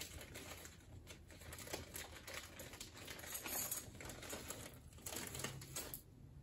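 Faint rustling and crinkling of a clear plastic bag as a bundle of candle wicks is pulled out of it, with small irregular clicks and crackles.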